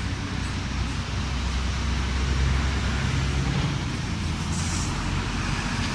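Low, steady rumble of road traffic: a ten-wheel dump truck's diesel engine approaching along the highway, swelling a little about two seconds in.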